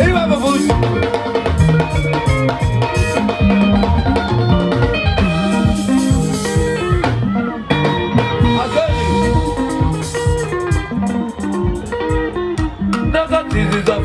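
Live sungura band playing: electric guitars with a bass guitar and drum kit keeping a steady, quick beat.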